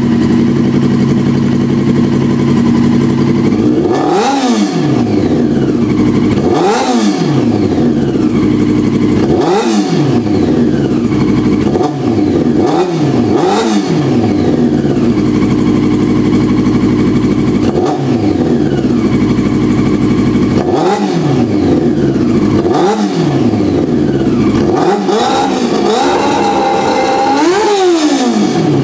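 A 2001 Yamaha R6's carbureted inline-four engine idles, blipped with the throttle about a dozen times. Each blip is a quick rev that rises and falls back to idle. The engine is running on freshly cleaned carburetors.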